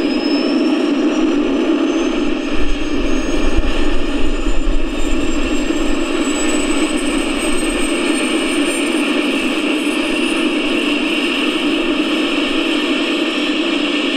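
Scale RC Aérospatiale SA-315B Lama's Benedini sound module playing a turbine start-up: a steady jet-like rush with a thin high whine that climbs slowly in pitch. A low rumble comes in from about two seconds in until about eight.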